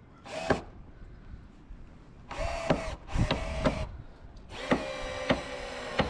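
Cordless drill-driver running in three bursts, a short one, a longer one about two seconds in and a long one from about four and a half seconds, its pitch sinking slightly in the last, with sharp clicks through the later bursts. It is driving screws through an elastomer rubbing strake into a boat's hull.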